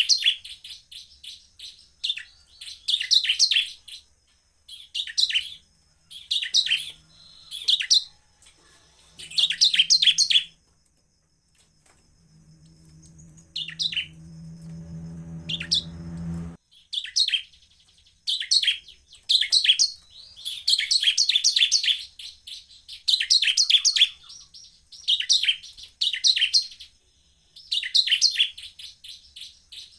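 Bar-winged prinia (ciblek) singing hard in full song: repeated bursts of rapid, high, chattering trills, one every second or two, with a short pause near the middle. A low hum swells up in the middle and then cuts off suddenly.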